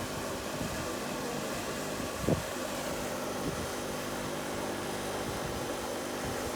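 Steady machine-like hum, with a single short knock about two seconds in and a fainter one a second later.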